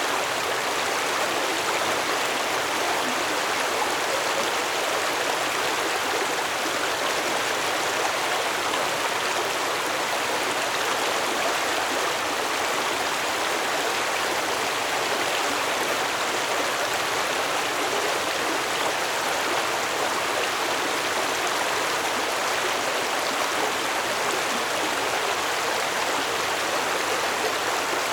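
Stream water flowing steadily, an even rushing and burbling with no breaks or changes.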